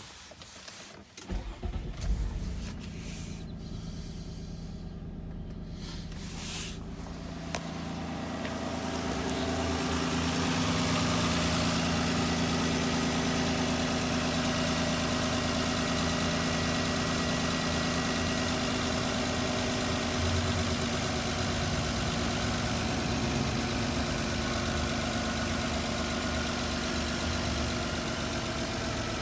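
Infiniti I30's 3.0-litre V6 cranking and catching, then idling steadily, just after a failed ignition coil was replaced to cure a misfire. About eight seconds in, the sound grows louder and stays so.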